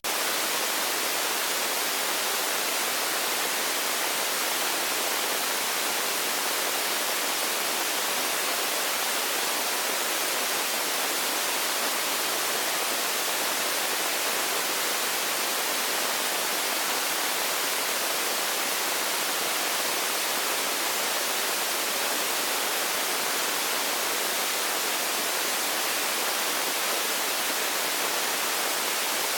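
Steady, even hiss like static, with no change in level or character.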